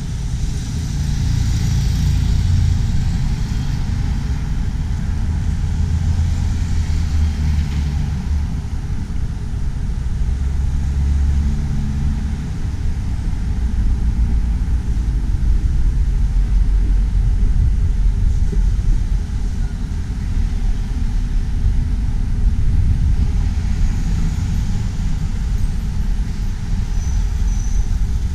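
Road traffic: cars running past with a steady low engine rumble and a lighter hiss of passing tyres near the start and near the end.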